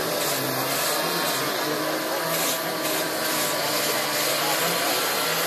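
Power carving tools running steadily on wooden sculptures, a constant noise with no breaks.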